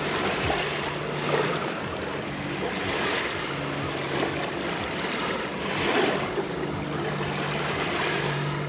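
Sea waves washing onto the beach, swelling louder a few times, under a faint steady low engine hum.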